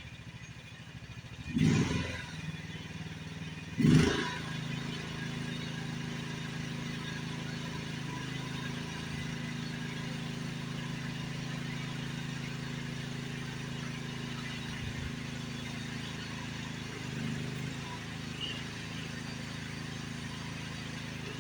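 Engine of a small work machine running steadily as it pulls a strap on a rotten shed wall, with two loud bangs about two and four seconds in.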